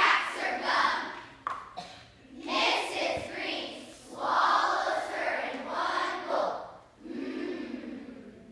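A group of children speaking lines in unison, choral recitation in several phrases with short pauses between them.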